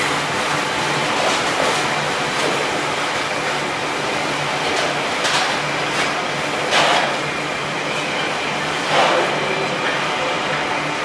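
Empty wagons of a freight engineering train rolling through on steel wheels, with a steady rumble of wheels on rail. A few brief, louder metallic screeches stand out, the loudest about two-thirds of the way through and again near the end.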